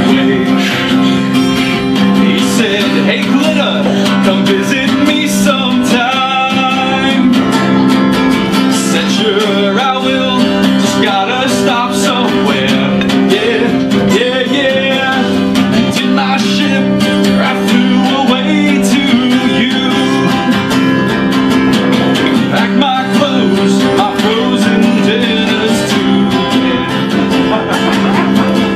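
Live music with a guitar, playing continuously.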